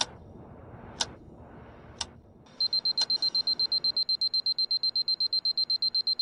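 A clock ticking once a second, then a high electronic alarm beeping rapidly, about ten beeps a second, starting about two and a half seconds in. The ticks carry on under the first beeps.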